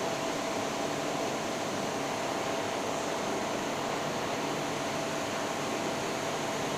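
TIG welding arc burning steadily: an even hiss with a faint constant tone running through it.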